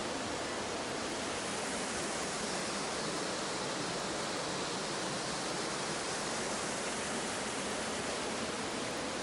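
Steady rush of a mountain gorge stream tumbling over rocks and small waterfalls, an even hiss with no breaks.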